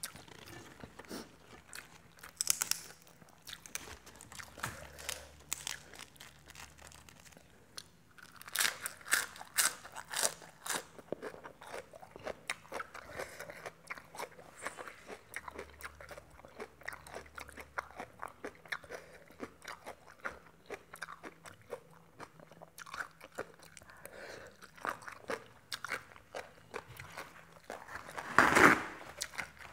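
A person eating up close: wet chewing and crunching of a som tam meal, with many small clicks and a denser run of crunches about a third of the way in. A louder burst near the end, as a tissue is pulled out.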